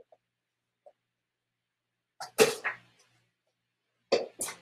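Serving utensil scraping and clinking against a frying pan and plate as cooked food is served up: one loud scrape about two seconds in, then a few quick clinks near the end.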